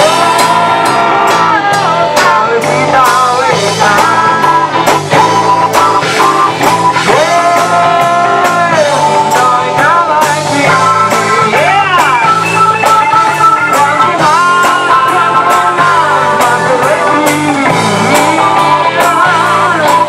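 Live rock band playing: electric bass, drum kit, electric guitars and keyboard, with a woman singing lead.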